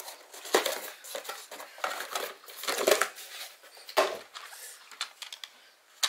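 Cardboard packaging and plastic wrap being handled: irregular rustling, scraping and crinkling, loudest a little after the start, near the middle and about four seconds in.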